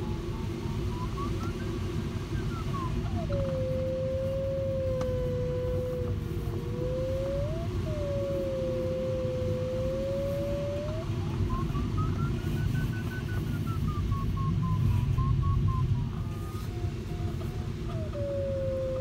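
Glider's electronic variometer audio over steady cockpit airflow noise. Twice the tone turns into quick beeps that rise in pitch and fall again, which signals climbing in lift. In between, and near the end, it settles into a steady lower continuous tone, which signals sink.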